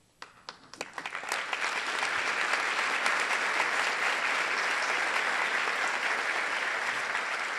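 Audience applauding in a hall. The clapping starts after a brief quiet, builds over the first couple of seconds, holds steady, and eases a little near the end.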